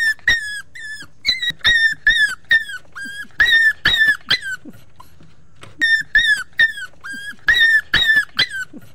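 Puppy whining: a rapid string of short, high-pitched cries, about three a second, in two bouts with a brief pause about five seconds in.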